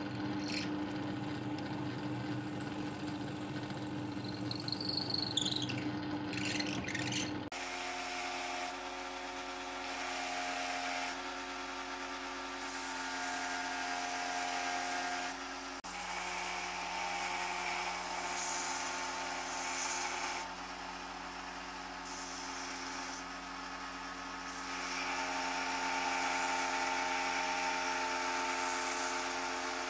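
Bench drill press running and boring through wooden handle scales for about the first seven seconds. It is cut off abruptly by a belt sander running as a small block of wood is held against the belt. The sander's tone shifts several times as the wood is worked.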